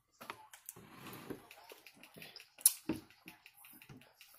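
Close-up eating sounds: irregular wet chewing clicks and lip smacks while corn on the cob is eaten, then a sip through a straw near the end.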